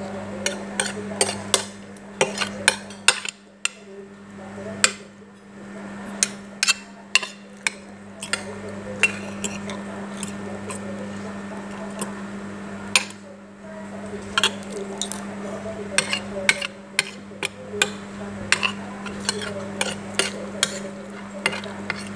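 Metal spoon and fork clinking and scraping against a plate while eating: many sharp, irregular clicks, with a couple of short lulls, over a steady low hum.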